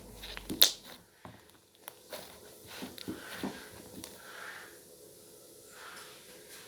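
Slime being squeezed and stretched by hand, making sharp clicking pops, the loudest about half a second in, between soft squishing noises.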